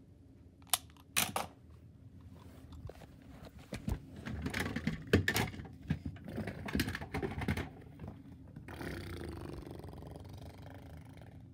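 Clicks, knocks and rattling of plastic toys and the phone being handled, busiest midway. Near the end this gives way to a steady hiss lasting about three seconds.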